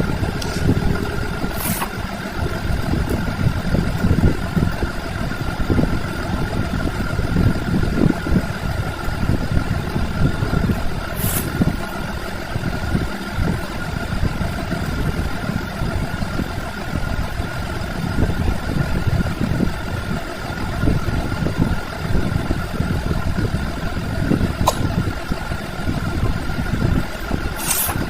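A steady low rumbling drone with a constant high-pitched whine running through it, and a few sharp clicks scattered through it.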